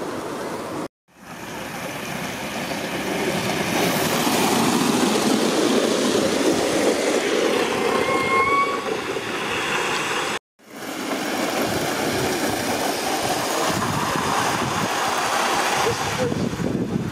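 Gauge 1 live-steam model locomotive running: a steady hiss of steam with wheel and running noise. A short rising tone sounds about eight seconds in.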